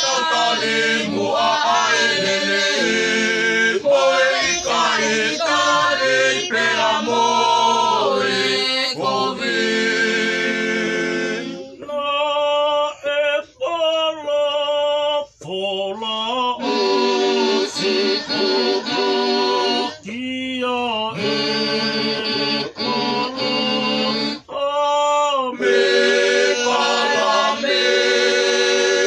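Family group of men, women and children singing together without accompaniment. Around the middle the singing thins to fewer voices for a few seconds, then the full group comes back in.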